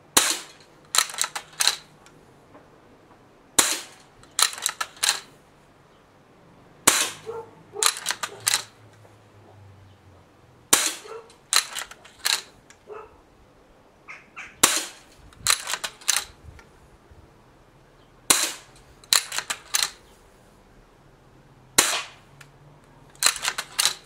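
Gamo Expomatic 2000 spring-piston break-barrel air rifle fired seven times, about one shot every three and a half seconds. After each shot a quick run of clicks follows as the barrel is broken open and snapped shut, cocking the spring and working the repeating mechanism that feeds the next pellet from the tube magazine.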